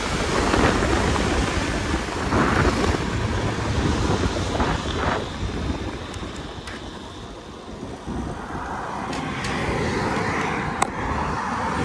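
Wind rushing over the microphone and the KTM Duke 250's single-cylinder engine running while the bike is ridden on the highway. The sound eases off about six to eight seconds in as the bike slows toward the roadside.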